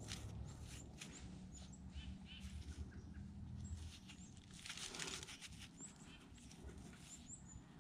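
Faint rustling and scraping of work-gloved hands rubbing dirt off a small dug-up find, with a louder scrape about five seconds in. Short high bird chirps come a few times.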